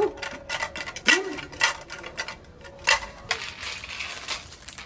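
Hard plastic toys knocking and clattering in a string of sharp, irregular clicks.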